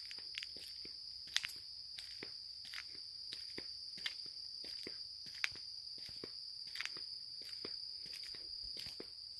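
Footsteps walking at an even pace, about three steps a second, over a steady high-pitched buzz of insects.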